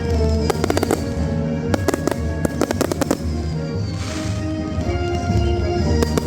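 Fireworks going off in quick succession, sharp bangs and crackles, with a rushing hiss about four seconds in, over music playing.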